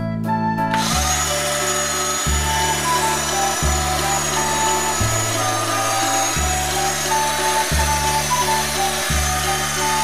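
Electric toy grinder running, a steady whirring hiss that starts about a second in, over looped background music with a repeating bass line and melody.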